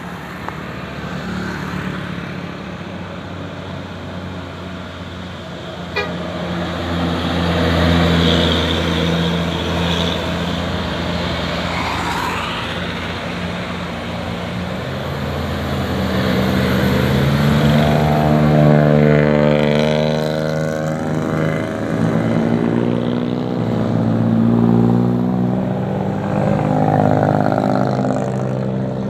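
A bus engine runs. From about halfway, the bus's telolet basuri horn plays a multi-note tune several times, its pitch stepping up and down.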